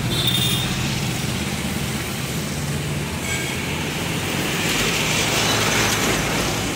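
Street traffic: a motor vehicle engine running low and steady for the first few seconds under a broad traffic hiss, with a short horn toot at the very start. The traffic hiss swells about five seconds in.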